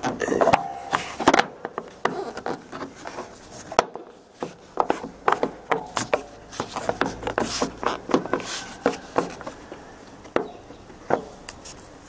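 Irregular light clicks, knocks and rubbing of fingers on plastic as a new trunk release switch is pressed and seated into the BMW E60 trunk lid handle.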